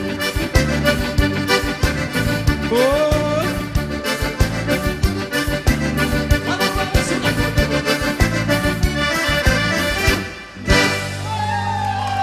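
Accordion-led gaúcho dance band playing an instrumental passage over a steady bass-and-drum beat, then a final chord struck about ten and a half seconds in and held to the end.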